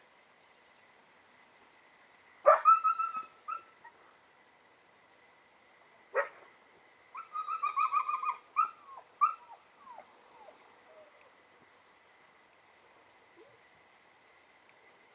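Young Belgian Malinois whining and yipping in short high-pitched cries: a sharp yip about two and a half seconds in followed by a quick run of whines, another sharp yip near six seconds, then a longer string of whimpers, some falling in pitch, that dies away around ten seconds in.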